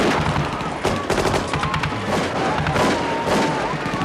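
Scattered gunfire, sharp shots at irregular intervals, the loudest about a second in and again near the end, under background film-score music.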